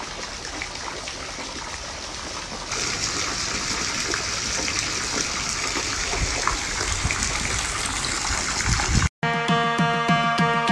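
Hot tub water churning and bubbling steadily. About nine seconds in it cuts to electronic music with a steady beat.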